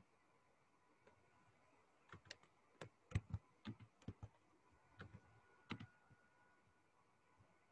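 Faint, irregular clicks of a computer mouse and keyboard, a cluster of sharp taps bunched from about two seconds in to about six seconds in.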